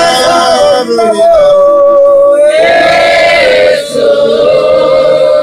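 A man singing a slow hymn in long, drawn-out held notes, with other voices joining in.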